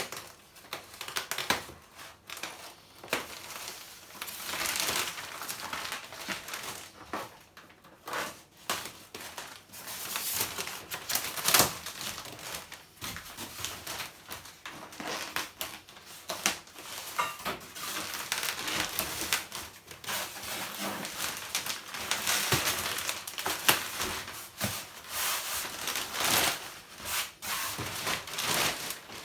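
Packaging being pulled off a new tumble dryer: crinkling plastic wrap, tearing, and cardboard and foam being handled, with irregular knocks and scrapes and one sharp knock near the middle.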